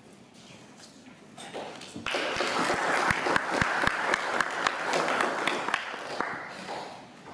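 Audience applauding. The clapping starts about two seconds in, swells and then dies away near the end.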